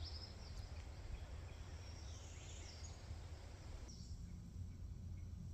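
Faint outdoor ambience: a low rumble and light hiss, with faint high chirps of birds or insects. The hiss cuts off abruptly about four seconds in.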